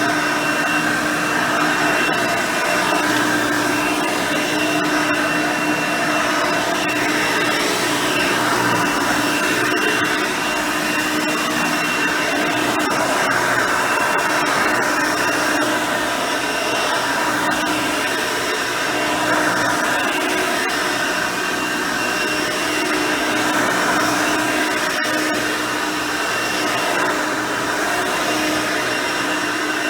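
Hoover Elite 350 upright vacuum cleaner running steadily, its 5-amp motor with the original nine-blade fan. It gives a continuous rush of air with a steady hum and a thin high whine.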